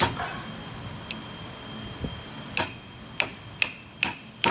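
Short, sharp metal-on-metal taps: a few at the start, then about five more coming roughly every half second, as the junk ring is tapped and pushed down into the steel choke bonnet's packing bore with a hammer and a driver rod.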